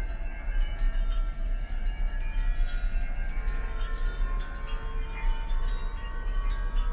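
Many short, overlapping chime-like metallic rings tinkling over a steady low rumble.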